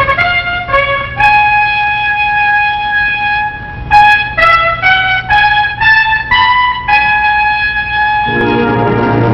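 Opening theme music: a solo trumpet plays a melody of short notes, a long held note, a quick run of notes and another held note. A fuller, lower accompaniment joins near the end.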